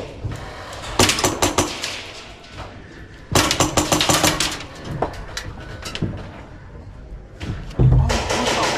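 Airsoft guns firing in three short bursts of rapid shots, about a second in, around the middle, and near the end. A low thud comes just before the last burst.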